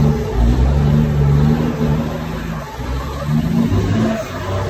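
A semi truck's diesel engine running hard at high revs during a burnout, heard from inside the cab. The engine note sags about halfway through, then picks back up near the end.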